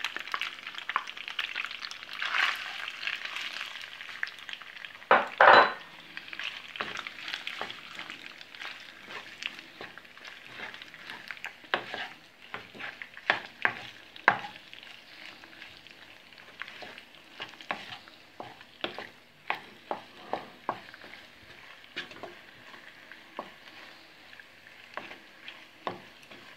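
Wooden spoon stirring rigatoni in a nonstick frying pan, with a light sizzle from the hot pan and frequent soft taps of the spoon on the pan. There is one loud knock about five seconds in. The sizzle is strongest at first and thins out later.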